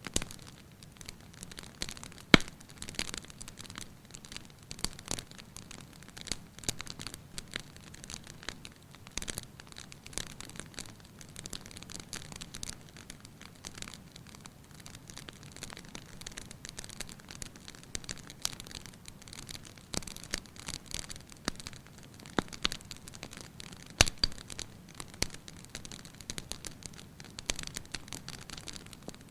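Wood fire crackling in a fireplace: a constant run of irregular small snaps and pops over a low rumble of flame, with two sharper, louder pops, one about two seconds in and one late on.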